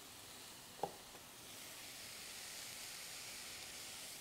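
Faint steady sizzle of diced vegetables sautéing in a frying pan, with a single light knock of the knife on the cutting board just under a second in.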